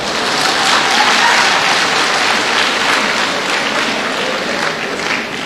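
A crowd applauding, with dense clapping that eases off slowly toward the end.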